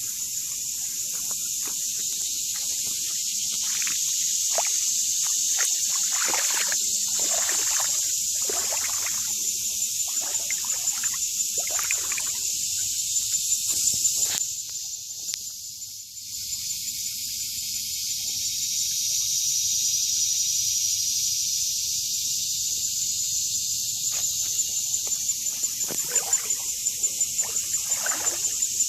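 Outdoor natural ambience: a steady high-pitched hiss with a fine pulsing that dips briefly about halfway through, and scattered crunching steps on the forest floor in the first half and again near the end.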